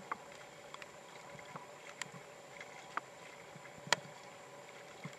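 Storm runoff trickling in a thin sheet over a flooded lawn: a steady quiet watery hiss, with scattered sharp ticks, the loudest a little before four seconds in.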